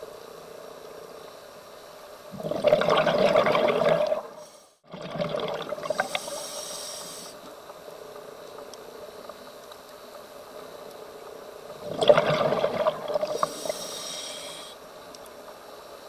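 Scuba diver breathing through a regulator underwater: two breaths, each a loud rush of exhaled bubbles lasting a second or two, followed by the thinner hiss of an inhalation. A steady hum runs underneath.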